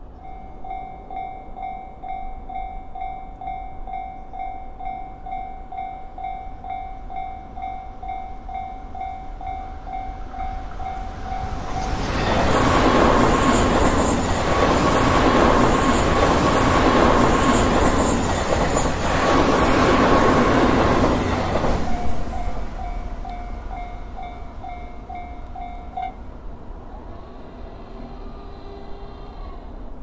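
Japanese railroad crossing bell ringing in a quick, even, repeating rhythm. About twelve seconds in, an electric limited express train passes at speed for about ten seconds, the loudest part, with a rush of wheels on rail. After the train has gone the bell rings on, then stops a few seconds before the end.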